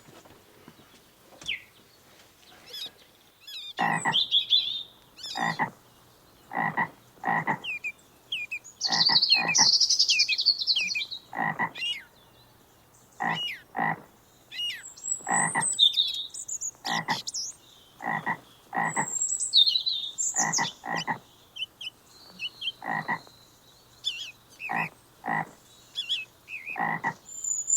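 Short animal calls repeating about once a second, starting about four seconds in, with birds chirping higher up throughout.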